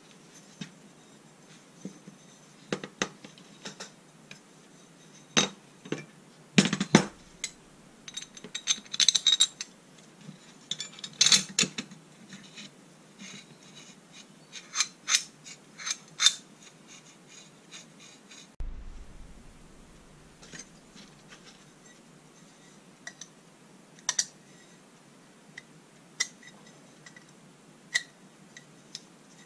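Small steel plates being handled on a workbench: irregular metallic clinks and knocks as they are picked up, fitted together and set down, most of them in the first half and fewer later.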